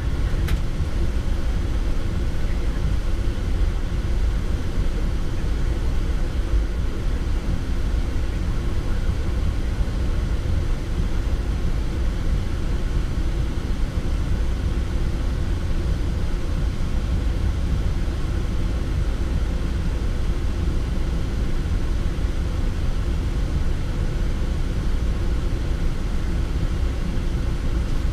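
Steady low rumble on the flight deck of a Boeing 787 taxiing, from the engines at taxi power and the aircraft rolling along the taxiway.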